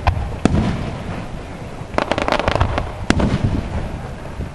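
Aerial firework shells bursting: sharp bangs at the start and about half a second in, a quick run of crackling pops about two seconds in, then another loud bang about three seconds in, each followed by a low rumble.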